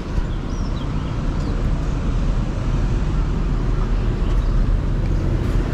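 Steady rumble of road traffic passing on a busy main road, with no distinct single vehicle standing out.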